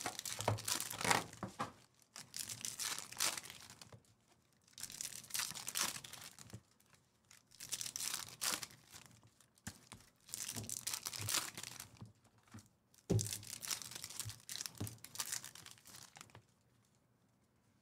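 Foil trading-card packs being torn open and their wrappers crinkled, in bursts with short pauses between. One sharp knock about two-thirds of the way through.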